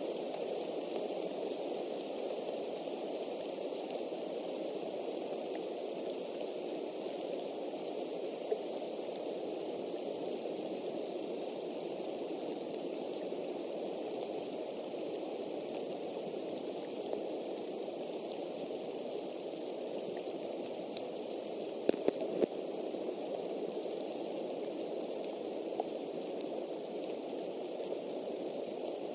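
Steady rain heard as an even hiss through the nest camera's outdoor microphone, with a few sharp drip ticks, a short cluster of them about three-quarters of the way in.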